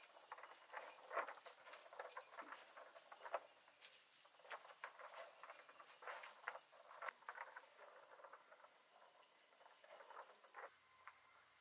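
Faint, soft rustling and patting of hands lifting and spreading boiled noodles on a woven bamboo tray: many small, irregular taps and rustles that die away near the end.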